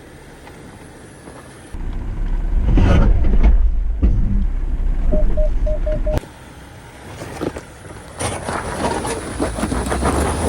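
A 4x4 off-road vehicle's engine and drivetrain rumbling low on a trail, with a quick run of five short electronic beeps about five seconds in. After an abrupt change, the noise builds with crackling and ticking, like tyres working over rock and gravel.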